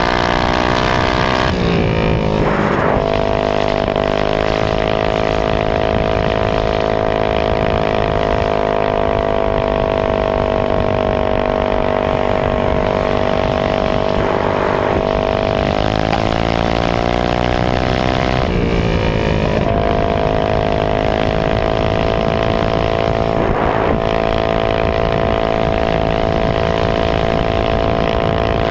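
Minibike's Honda GX160 single-cylinder engine running hard at a steady pitch under the rider, its revs sagging and climbing back twice: about two seconds in and again around sixteen to nineteen seconds in.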